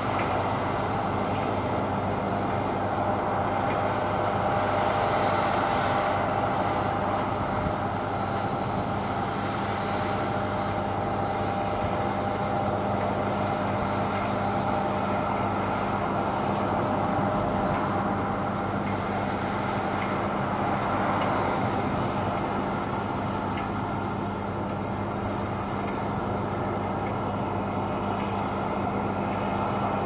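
John Deere S680i rotary combine harvester running steadily while cutting barley: a constant engine and threshing drone with a few held hum tones.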